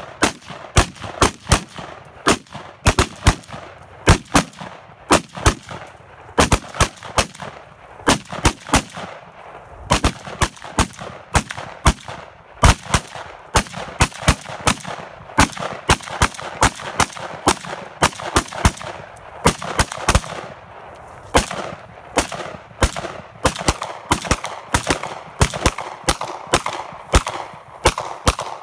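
Two shooters firing semi-automatic rifles and then switching to pistols, in rapid overlapping strings of single shots, often several a second, with a few brief pauses.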